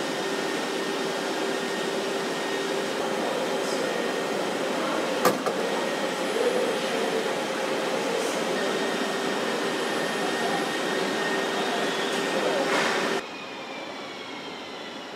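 Car assembly plant ambience: a steady hum and rush of machinery and air handling with a few constant tones, and one sharp clack about five seconds in. Near the end it cuts to a quieter, duller factory ambience.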